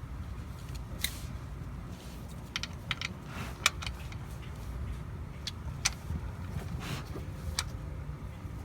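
A scattering of light clicks and clinks, like small metal parts or tools being handled, over a steady low rumble; the sharpest click comes a little before the middle.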